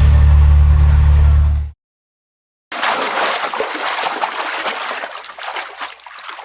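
Music with a heavy bass line cuts off sharply, and after a second of silence comes rushing, splashing water that fades away.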